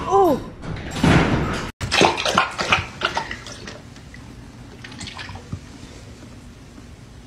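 Dog lapping water from a stainless steel bowl: a quick run of wet, splashy laps for about two seconds, then only a few faint laps and drips. A short rising-and-falling call sounds at the very start.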